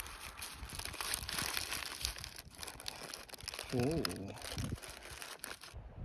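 A white paper snack bag crinkling and rustling as fingers pull the paper back from the food, with some light tearing of the paper. A brief wavering voice sound comes about two-thirds of the way in, and the crinkling stops suddenly just before the end.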